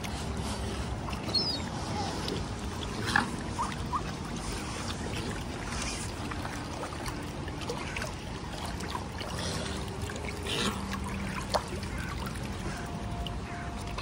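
Wind rumbling on the microphone over small waves lapping against shoreline rocks, with a few short clicks.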